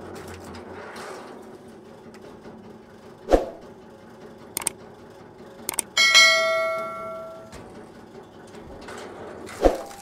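A log splitter runs with a steady hum, with two sharp thumps as logs split on its steel wedge: one about three seconds in and one near the end. About six seconds in, a mouse click is followed by a loud notification-bell ding from a subscribe-button animation, which rings and fades over about a second and a half.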